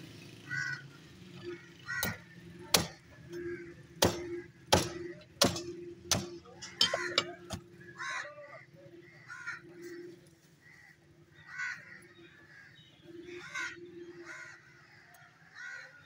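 Butcher's cleaver chopping through a buffalo head on a wooden block: a run of about nine sharp chops, roughly one a second, in the first half, then quieter knife work.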